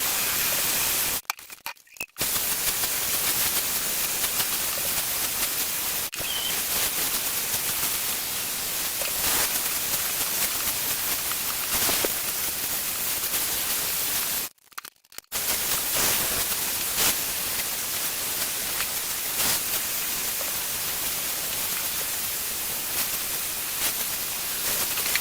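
Hot air styler's blower running, a steady rushing of air that stops briefly twice.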